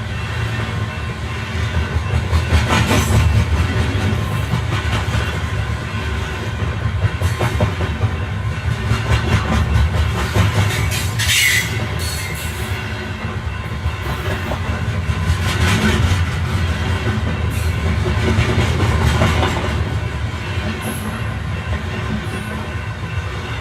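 Electric passenger train running, heard from inside the carriage: a steady low rumble with wheels clattering over rail joints and points, and a brief high wheel squeal about halfway through.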